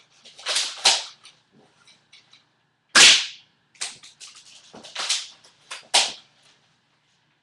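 An airsoft R73 pump-action spring shotgun being pumped and fired: a string of sharp snaps and clacks, the loudest about three seconds in, with lighter clicks between them.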